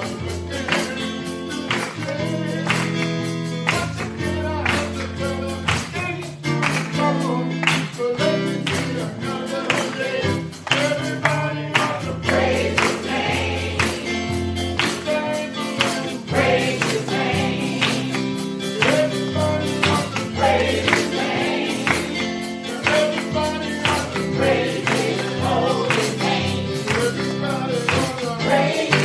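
Gospel music: a choir singing over a band, with held bass notes and a steady beat of percussion hits.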